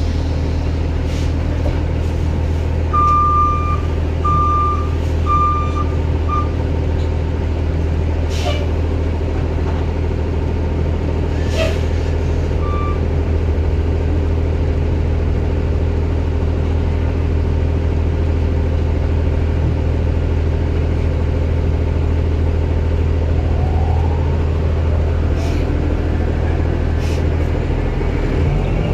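The 2009 Orion VII Next Generation hybrid bus, with its Cummins ISB diesel and BAE Systems HybriDrive, running with a steady low drone. A few seconds in there is a quick series of four short high beeps, with another single beep later and a couple of sharp clicks. Near the end a whine rises in pitch.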